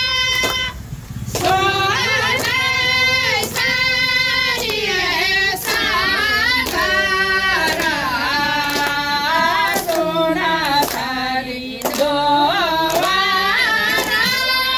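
A group of women singing a song together, with hand claps about once a second. A steady held note sounds under the voices at the start and again near the end.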